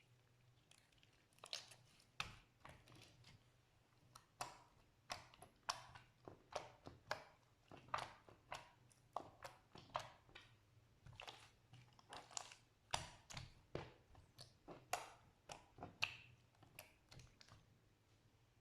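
Slime being pressed and kneaded by hand, giving a run of short sticky squishes and pops, roughly two a second, that begin about a second and a half in and stop shortly before the end.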